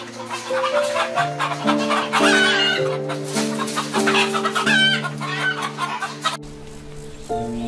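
Chickens clucking over soft, steady background music; the clucking stops suddenly about six and a half seconds in, leaving only the music.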